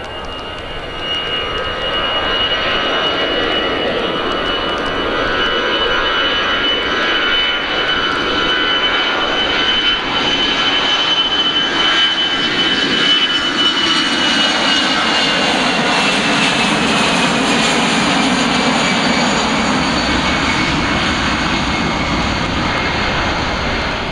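Airbus A320 jet engines at takeoff thrust during the takeoff roll and rotation: a broad roar with a steady high-pitched whine, growing louder about a second in. About two-thirds of the way through, the whine and the lower rumble slide down in pitch as the airliner passes and climbs away.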